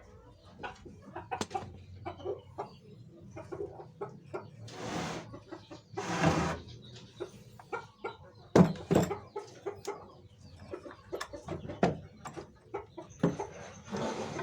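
Irregular clicks and knocks of parts being handled while the DC 895 motor is fitted to the mini table saw, with two short rushes of noise about five and six seconds in. Chickens cluck in the background.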